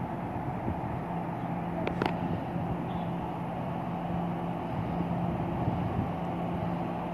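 TRA Puyuma (TEMU2000) tilting electric train pulling slowly out along the platform, a steady electric hum, with one sharp click about two seconds in.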